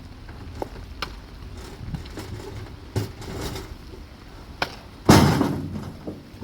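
A few sharp knocks over a low rumbling background, then one loud heavy thud a little past five seconds in that dies away over about a second.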